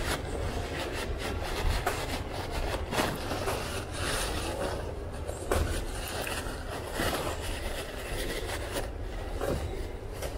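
Rubbing and scraping as the inside of a hydraulic disc-brake caliper is cleaned by hand, an irregular run of scratchy strokes with small knocks.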